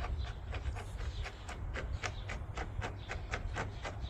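Rapid clicking, about five clicks a second, from a Toro Personal Pace mower's rear wheel as it is turned to engage its toothed drive shaft.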